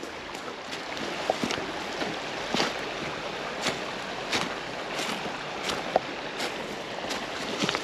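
River water rushing steadily, with a dozen or so short, sharp clicks scattered irregularly through it.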